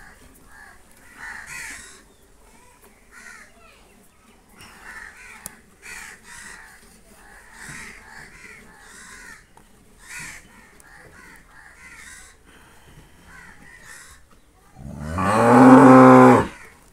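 A cow being milked by hand, with faint, regular squirts of milk into a steel pail about twice a second. Near the end comes one loud moo from the cattle, lasting under two seconds.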